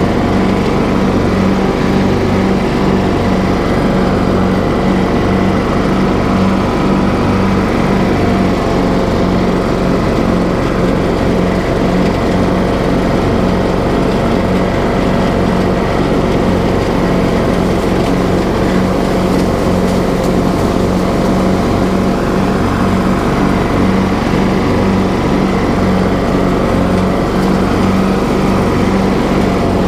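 TroyBilt riding lawn mower engine running steadily as the mower is driven across the lawn.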